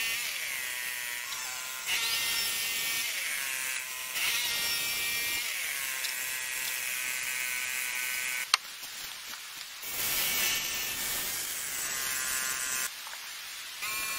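Power tool motor whining in repeated passes of a couple of seconds each, its pitch shifting as it works the wood. A single sharp click comes about eight and a half seconds in.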